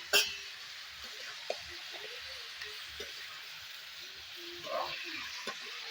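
Food sizzling steadily in a pan of hot oil while it is stirred, with a sharp knock of the spoon against the pan just after the start and a few lighter taps.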